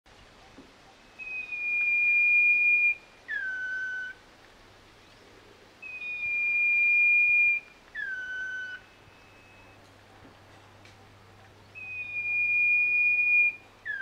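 Common iora singing its whistled song: a long, steady, high whistle followed by a shorter note that slides down in pitch, repeated three times at even intervals.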